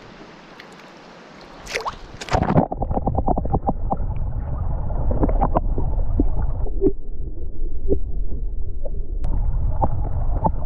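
Splashing as the microphone plunges under the water about two seconds in. Then a muffled underwater rumble with gurgling and many small clicks as a brook trout is held and released.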